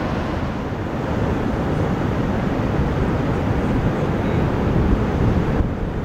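Steady wash of ocean surf breaking, with wind buffeting the microphone in an irregular low rumble.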